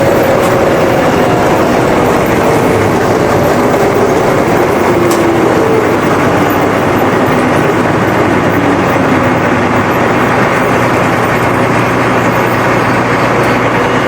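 Claas 750 combine harvester running with its threshing system engaged, a loud steady mechanical din, on a test run after repair. A faint tone slowly falls in pitch through the first half.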